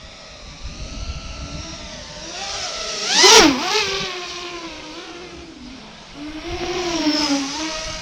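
FPV quadcopter's motors whining, the pitch sliding up and down with the throttle. About three seconds in comes one loud low pass: the whine swoops up and then drops sharply as the drone goes by. A second, softer swell follows near the end.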